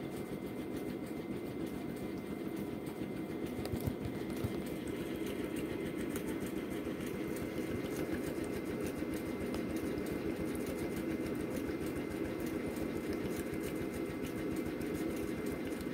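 Neonatal breathing-support equipment at an incubator runs with a steady, rapid rattle, with a faint steady high tone underneath.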